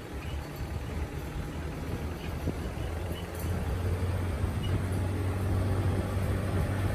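A motor vehicle's engine running with a steady low drone, getting louder about halfway through.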